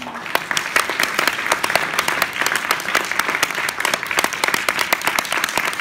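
Audience applauding, breaking out all at once and continuing as dense, steady clapping.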